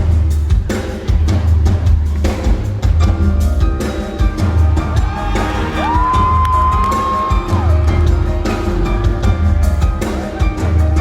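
Live band music: a drum kit beating a steady groove over deep pulsing bass. Around the middle, a note slides up and is held for a second or two before dropping away.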